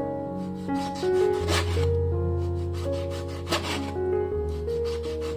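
A cleaver slicing raw pork into thin slices on a wooden chopping board. Each stroke is a short rasping cut, and there are two of them, about two seconds apart, over background music.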